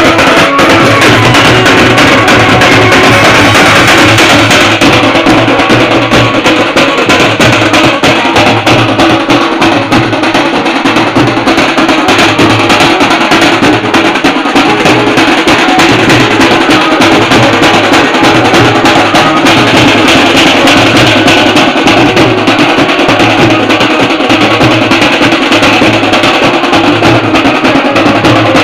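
A street drum band playing very loud, close up: a large bass drum struck with a wooden beater and snare-type drums played with sticks, beating out a steady, driving dance rhythm without a break.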